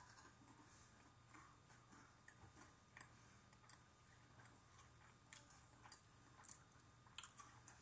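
Faint chewing of a chocolate-covered Kit Kat wafer, with soft scattered crunches and mouth clicks.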